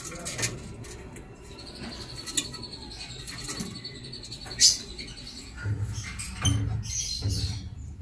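Masked lovebirds of the violet mutation chirping, with sharp short calls and a high, rapid trill lasting about three seconds in the first half. Low bumping and rustling come in over the second half.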